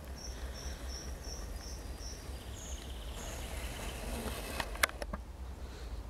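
A small forest songbird calls a run of six short, high notes at about three a second, then two higher notes. A single sharp click comes near the end, over a steady low rumble.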